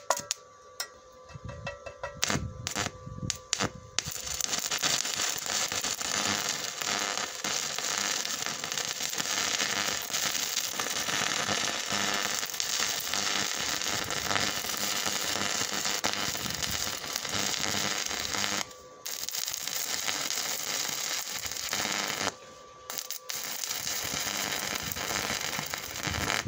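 Stick-welding arc from a KVAZARRUS 210 inverter welder burning a blue-coated electrode. It sputters in a few short bursts as the arc is struck, then settles into a steady, dense crackle. The arc breaks off briefly twice in the second half before crackling on.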